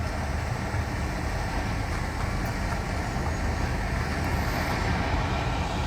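Heavy vehicle engine running with a steady low rumble, amid street traffic noise.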